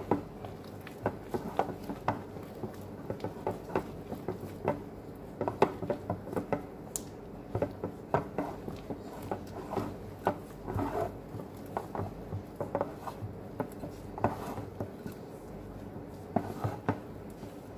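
A gloved hand kneading crumbly cookie dough in a glass bowl: irregular taps and soft knocks against the glass as the dough is pressed and turned, with a few longer stretches of the dough rubbing and working, over a steady low hum.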